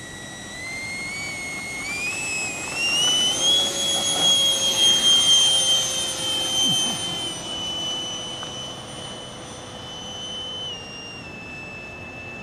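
Hobby Top Gun L-39's 90 mm electric ducted fan, driven by its stock 1600kv brushless motor, whining as the throttle is advanced in steps for the takeoff roll. The pitch climbs over the first few seconds and is loudest, with a rush of air, as the jet climbs out. It then drops back in two steps as the throttle is eased.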